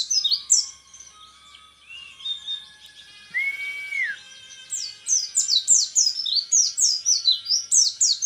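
Orange-headed thrush (peleci) singing in rapid-fire runs of quick descending whistled notes, the fast burst style bird keepers call "tembakan repet". A quieter stretch in the middle carries a held lower whistle, then the fast runs return about halfway through.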